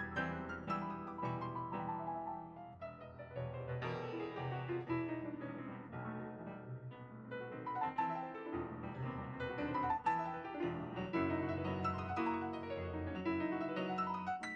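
Steinway S-155 baby grand piano being played: a flowing passage of quick running notes over held bass notes, with the phrase dying away at the end.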